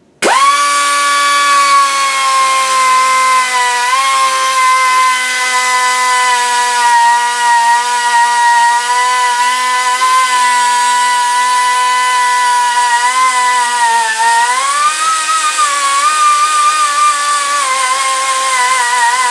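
Air-powered die grinder starting up and running at a steady high whine while grinding away a broken steel worm screw. Its pitch dips and recovers about three quarters of the way in, then wavers near the end.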